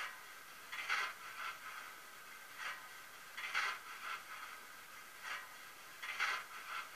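Sound decoder of a Brawa model PKP Pt31 steam locomotive playing standing-still steam sounds through its small speaker: a repeating rhythm of hisses, a louder double hiss about every two and a half seconds with a smaller single hiss between.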